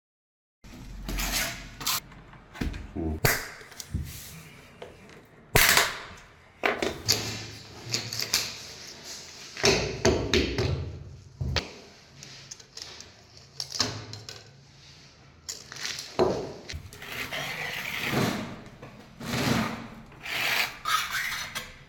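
A run of separate knocks and clicks with scraping in between: hands-on tile laying, with plastic self-levelling clips pushed under tile edges, a rubber mallet tapping tiles down and tile adhesive scraped off the edges.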